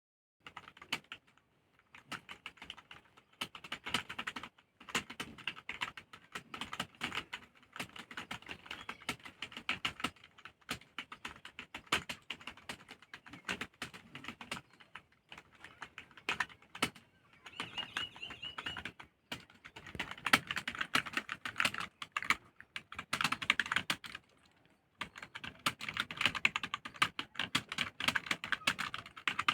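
Fast typing on a computer keyboard: a steady rapid run of key clicks, broken by brief pauses every few seconds.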